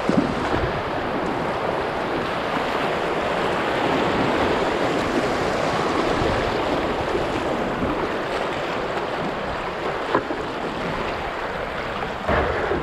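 Shallow river rapids rushing over rocks and around a kayak's hull: a steady, loud wash of moving water, with a single light knock about ten seconds in.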